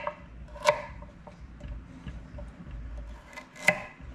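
Kitchen knife cutting small carrots in half on a cutting board: two sharp knocks of the blade striking the board, about three seconds apart, with lighter ticks between.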